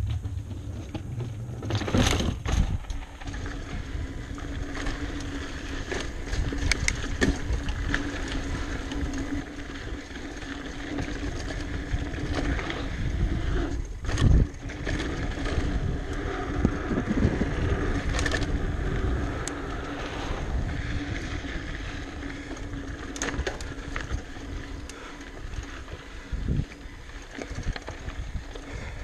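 Giant Talon mountain bike rolling over sandy dirt singletrack, with the tyres' steady rumble and knocks and rattles of the bike over bumps. The loudest knocks come about two seconds in and about halfway through.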